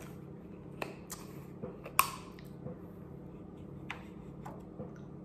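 Scattered small clicks and mouth sounds, the sharpest about two seconds in, as someone handles and sips from a small juice bottle, over a steady low hum.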